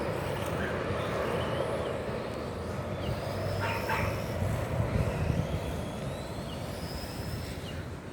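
Boeing 767 freighter's jet engines rumbling as it flies past on approach to land, the rumble slowly fading near the end, with brief high chirps over it.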